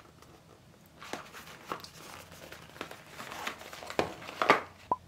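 Small cardboard boxes handled in the hands: rustling and scraping as they are turned over, with a couple of sharper taps near the end.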